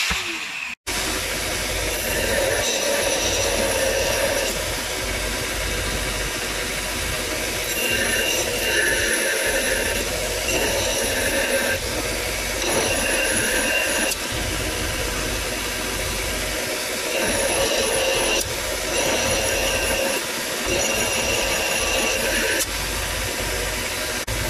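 Bench-grinder belt sander running steadily while a steel hatchet head is pressed against the abrasive belt, grinding the rusted surface down to bright metal; the rasping hiss of steel on the belt comes and goes with each pass. It opens with a short falling whine that cuts off.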